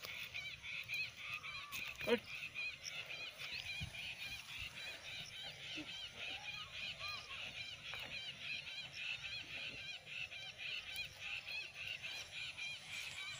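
Birds calling over and over, a few short high calls a second, with a brief falling cry about two seconds in.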